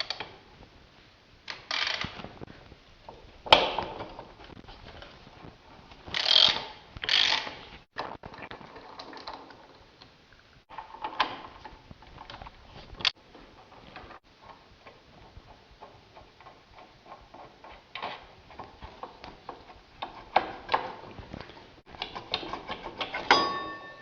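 Hand tools clicking and clinking on metal as the bolts of a motorcycle's disc-brake caliper are undone, with short rasping ratchet-like bursts and a few sharp knocks.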